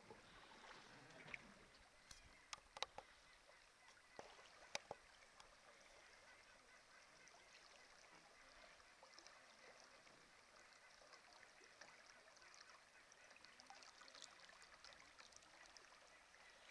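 Near silence: a faint steady hiss of moving river water, broken by a few sharp clicks between about two and five seconds in.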